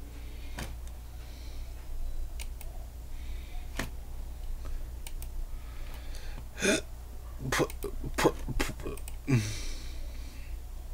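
Computer mouse and keyboard clicks at a desk: scattered sharp clicks, bunched and loudest in the later part, with soft breath noises between them over a steady low hum.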